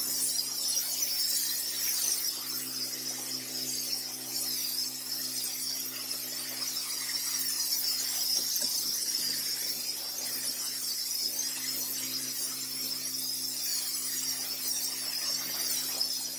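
Pressure washer spraying water on block paving: a steady, wavering high hiss of the jet over a steady low hum.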